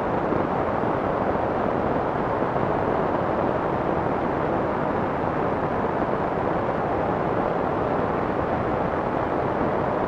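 Soft white-noise track: a steady, muffled hiss with its weight in the low and middle range and little treble, even and unbroken throughout, with no separate drops or clicks.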